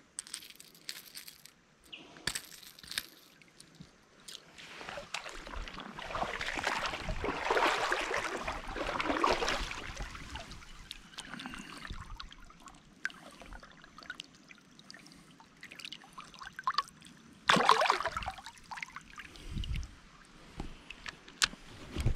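Creek water sloshing and splashing, swelling for several seconds in the middle, with a short, sharper splash about three-quarters of the way through.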